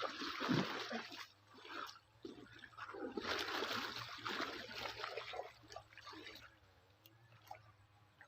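Water splashing and sloshing in two bouts, one at the start and a longer one in the middle, as a fishing net is worked in the water, then dying away.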